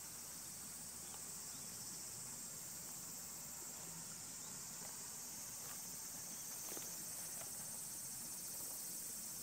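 A steady, high-pitched chorus of insects in the fields.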